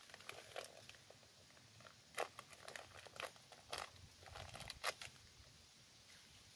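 Plastic bag being torn open and handled: a few sharp, irregular crinkles and crackles of the bag, strongest about two, three and a half and five seconds in.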